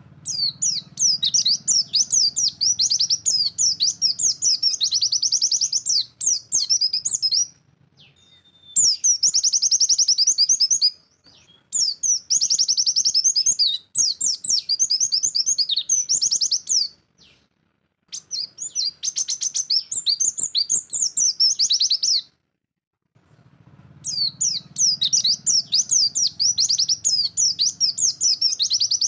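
White-eye (pleci) singing its rapid-fire "nembak" song: long runs of quick, high chirping notes, broken by short pauses a few times.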